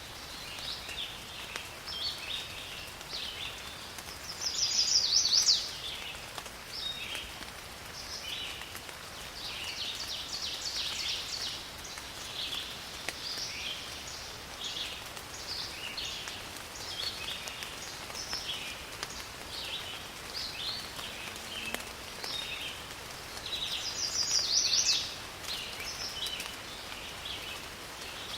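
Rainforest ambience: a steady hiss of rain with birds chirping over it throughout. Two louder, higher calls about a second long stand out, about five seconds in and again near the end.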